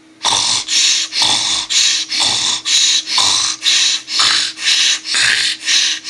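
Loud, rasping snoring: rapid snores of about two a second that start abruptly just after the beginning.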